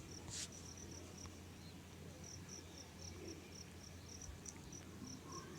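Faint cricket chirping in a steady run of short high pulses, about four a second, over a low hum.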